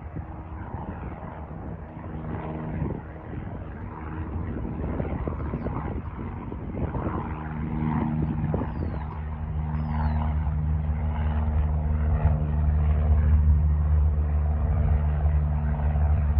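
Small propeller airplane's engine running with a steady low drone, growing louder as it draws nearer.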